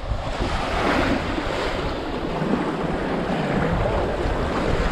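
Small waves breaking and washing onto the beach in shallow surf, with wind buffeting the microphone in a low, uneven rumble.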